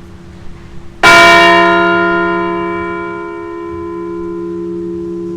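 A replica Liberty Bell struck once, about a second in, then ringing on with a long, slowly fading tone. It is the single toll given for one deceased veteran after his name is read.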